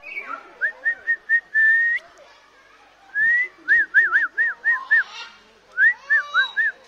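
Whistling: clear, loud whistled notes. It starts with a few short notes, then one longer held note about two seconds in. A rising slide follows, then a quick run of five arched notes around four seconds in and another short run near the end.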